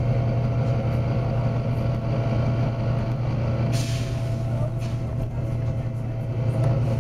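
Volvo B9TL bus running with a steady low engine drone, and a short burst of compressed-air hiss from its air system about four seconds in.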